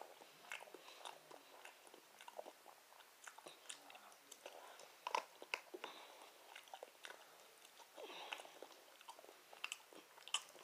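Quiet, close-up eating sounds: chewing and mouth noises, with irregular small clicks and scrapes of a plastic fork against a plastic food container.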